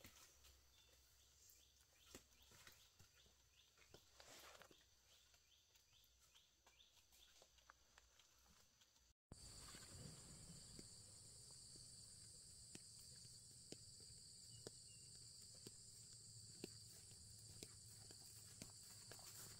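Faint footsteps of a man in sandals walking on a trail of dry leaves and stones. After a cut about halfway through, a steady high-pitched insect drone runs behind his quiet steps on a grassy dirt path.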